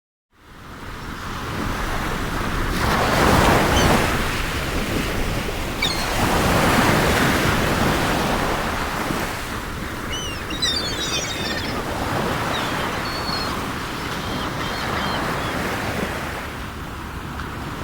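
Sea surf washing ashore in slow swells that rise and fall, fading in at the start. A few short, high seagull cries come over it past the middle.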